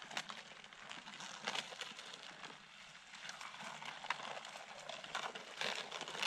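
Drifting river ice during the spring breakup: broken floes and small pieces knock and scrape together, giving an irregular crackling and clinking over a hiss of moving water.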